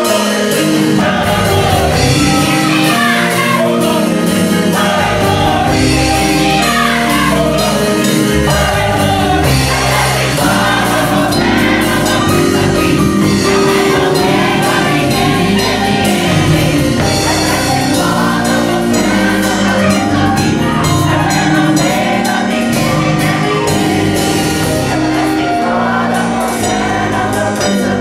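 Gospel choir of men's and women's voices singing in full harmony, with keyboard accompaniment.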